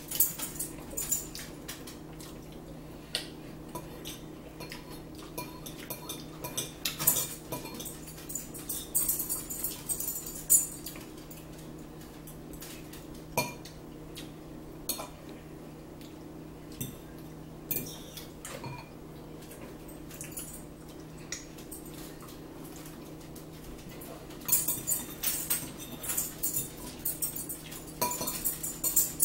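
Metal fork clinking and scraping against a ceramic bowl while picking up spinach salad, in irregular runs of sharp clicks that come thickest about a third of the way in and again near the end.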